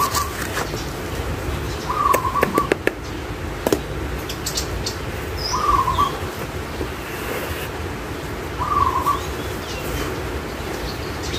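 A bird repeating the same short call four times, about every three seconds. A few sharp clicks and knocks from hands working potting soil into a plastic pot come about two to three seconds in.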